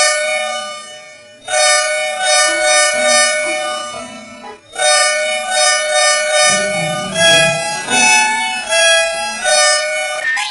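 Volvo bus horn sounding two tones together in long held blasts, each about three seconds, as an edited sound-effect variation. From about seven seconds in it changes to shorter honks alternating between a higher and a lower pitch.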